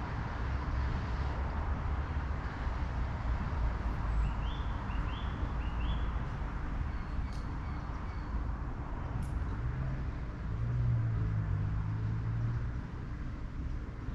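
Steady outdoor rumble and hiss, with three short rising bird chirps about four to six seconds in and a low drone from about ten to twelve seconds in.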